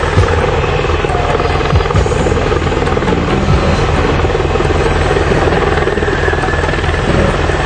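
Helicopter in flight close by, its rotor beating steadily.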